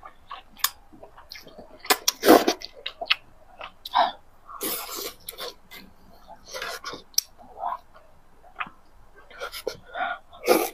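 Close-miked eating sounds: noodles slurped in, then wet chewing with lip smacks and small mouth clicks in irregular bursts. Near the end a piece of soft braised pork belly is bitten into.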